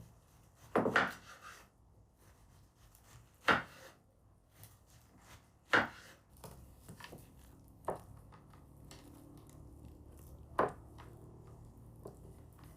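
A knife chopping on a wooden cutting board: four loud, sharp chops spaced a few seconds apart, with lighter knocks and scraping between them.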